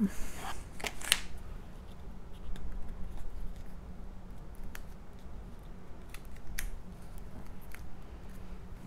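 Cardstock being handled: a brushing slide of paper in the first half-second and a sharp tap about a second in as the card base is turned over, then scattered faint taps and paper creasing as its tabs are worked.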